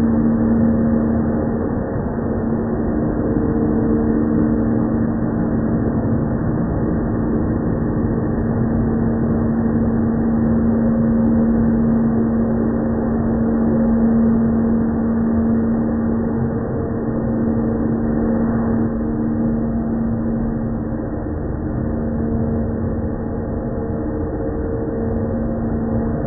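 Corded electric leaf blower running steadily: a dull, muffled rushing hum with a steady low whine.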